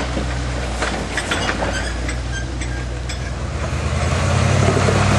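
International Harvester Scout's engine running under load as the rig crawls up a steep, slick rock ledge, its steady low drone rising in level about four seconds in as more throttle is given. Scattered sharp clicks and knocks sound over it.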